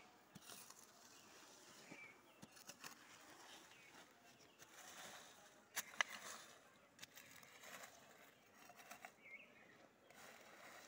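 Near silence: faint outdoor ambience with a few scattered clicks, the sharpest about six seconds in.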